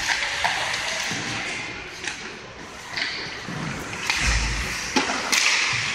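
Ice hockey play in an indoor rink: skate blades hissing across the ice, several sharp clacks of sticks and puck, and a dull thud about four seconds in.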